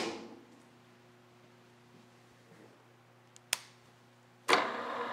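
A loud clunk, then a sharp click about three and a half seconds in; about a second later the DoAll gear-head drill press starts up and runs steadily on its first power-up after being temporarily wired.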